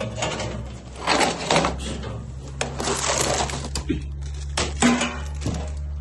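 Tools and small parts of a tire plug kit being handled: clattering and rustling in several bursts, with a couple of sharp clicks, over a steady low hum.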